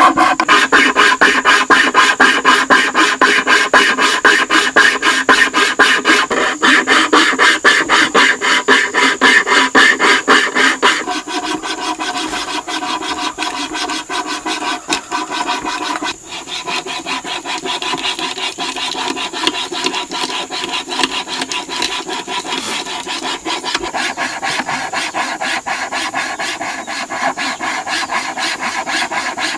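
Hand saw with a thin spiral wire blade rasping through a wooden plank in quick, even back-and-forth strokes, cutting a round hole. The strokes are louder for the first eleven seconds or so, then go on more softly.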